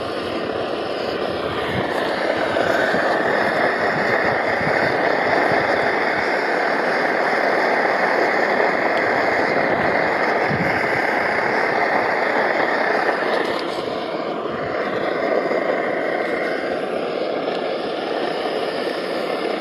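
MSR XGK multi-fuel stove running flat out on diesel: a loud, steady rushing noise from the pressurised burner, a little quieter from about thirteen seconds in.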